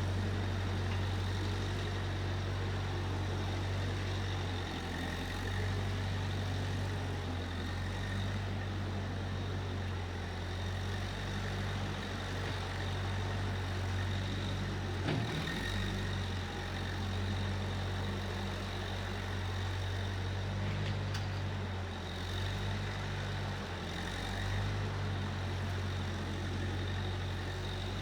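Case 1530 Uni-Loader skid steer engine running steadily at a low speed, its note shifting slightly a few times, with a single short knock about halfway through.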